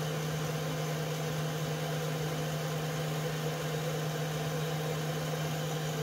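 Steady low hum of a running electric motor or machine, one even tone that does not change.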